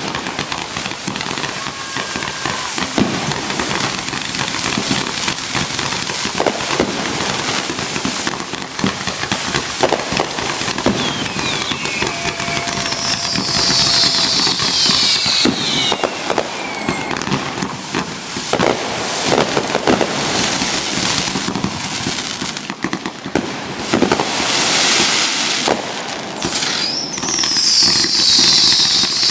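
Fireworks going off in a dense barrage: sharp bangs one after another over continuous crackling, with falling whistling tones a few times.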